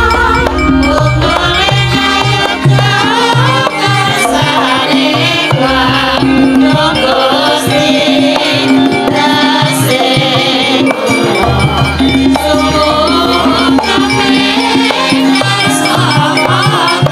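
Javanese gamelan ensemble playing, many pitched metal and melodic instruments layered, with repeated drum strokes.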